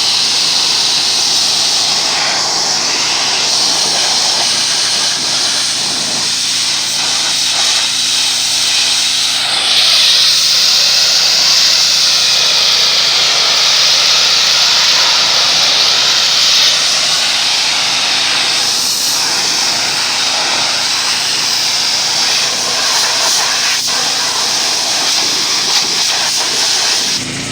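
Pressure washer's high-pressure water jet hissing steadily as it sprays a surface, growing a little louder about ten seconds in and stopping near the end.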